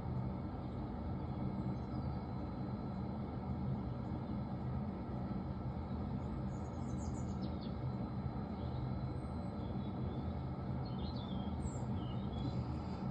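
Diesel heater running steadily on a mix of diesel and engine oil, an even low rumble of combustion and exhaust. A few faint bird chirps come and go in the second half.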